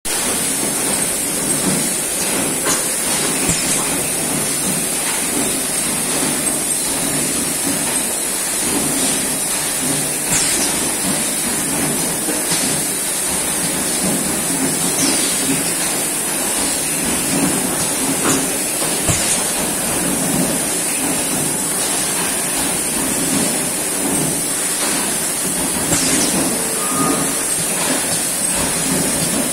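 Bottle filling line running in a factory: a steady machine din under a constant high hiss, with scattered light clicks.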